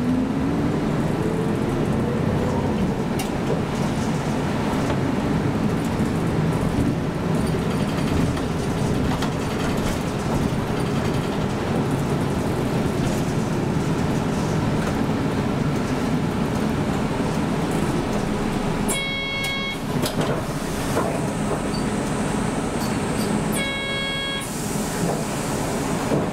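City bus running, heard from inside the cabin: steady engine and road noise, with the engine pitch rising as the bus picks up speed at the start. A horn-like tone sounds twice, about a second each, some four seconds apart, near the end.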